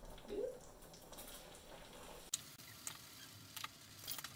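Faint clicks and light taps of a metal measuring spoon against a flour container and a cast-iron skillet as flour is scooped and tipped in, with a brief rising hum of a voice near the start.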